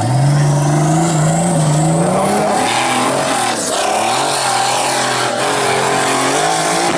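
Formula Offroad car's engine running at high, fairly steady revs under hard throttle on a hill climb. About two and a half seconds in, a loud rushing noise joins it.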